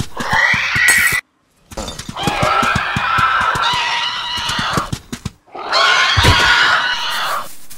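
Dinosaur sound effect: shrill, rasping raptor screeches in long calls over a run of low thuds. It cuts out briefly about a second in and again just after five seconds.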